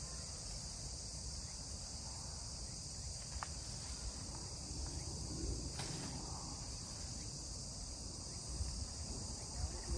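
Steady, high-pitched chorus of insects such as crickets, with a low rumble of wind on the microphone underneath.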